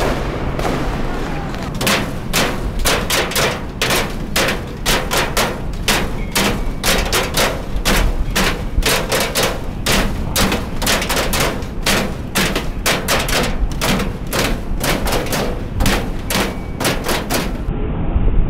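A long run of sharp bangs or knocks, irregular, about two or three a second, over a steady low rumble.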